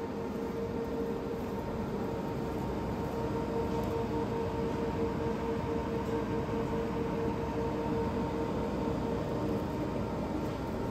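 Refrigerated drinks display case running: a steady mechanical hum with a constant pitch over a steady rush of air.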